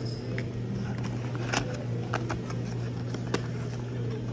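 A few light clicks and taps from the Insta360 X3's cardboard box and insert tray being handled, over a steady low hum.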